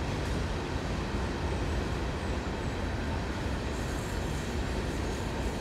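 Empty coal train's hopper cars rolling past: a steady rumble of steel wheels on rail.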